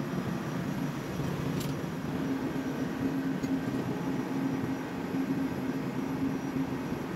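Steady drone of running ship's engine-room machinery with a constant low hum, and one faint click about one and a half seconds in.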